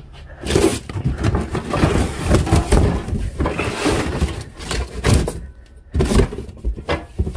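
A cardboard box packed with metal pots and pans being dragged and pulled open: rustling, scraping cardboard with many short knocks, broken by a brief lull about two-thirds of the way through.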